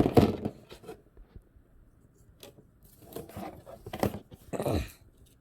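Irregular handling noise: a few short scrapes and knocks, the loudest right at the start, as a Phillips screwdriver and heatsink mounting parts are handled.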